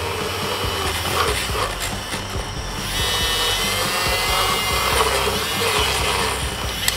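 Battery-powered handheld mini milk frother running, its small wire whisk whirring through egg whites in a ceramic bowl as they froth into a fine cream. It cuts off with a click near the end.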